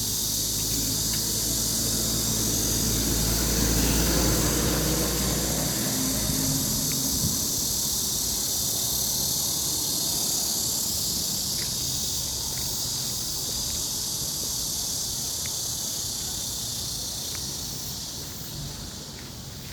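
Steady, dense high-pitched chorus of insects chirring outdoors. During the first six seconds a low engine drone sits underneath, then fades out.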